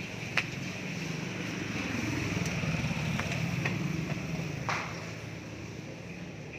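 A motor vehicle engine hums steadily, swelling louder in the middle and easing off again, with a few sharp clicks over it.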